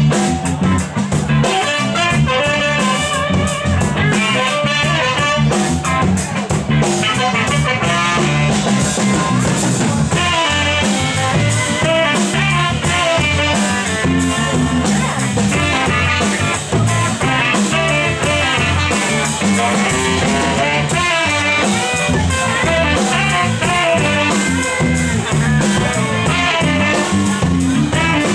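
Live band playing amplified music over a steady drum beat.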